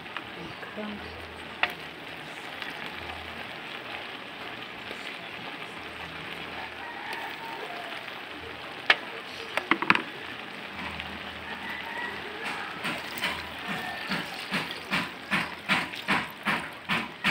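Wooden spatula working water spinach in an aluminium wok over a steady hiss: a few sharp knocks against the pan about nine to ten seconds in, then a run of rhythmic strokes, about two or three a second, near the end.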